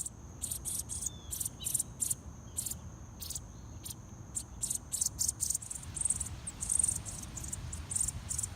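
Insects chirping in a steady run of short, high-pitched pulses, about three a second, with a steady high trill under them in the first half.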